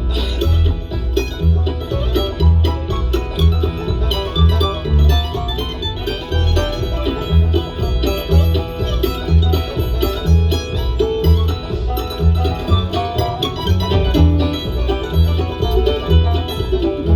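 Live bluegrass band playing an instrumental break, led by a banjo over guitar and a steady bass beat.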